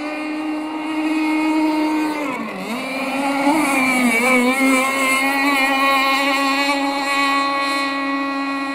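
Aeromarine Conquest Cat RC gas boat's CC Racing 260 two-stroke engine with a tuned steel pipe, running flat out on the water. Its high, steady pitch dips briefly about two and a half seconds in, climbs back, then holds steady.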